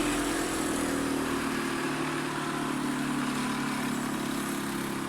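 Electric bench grinder running with a steady motor hum, slowly fading.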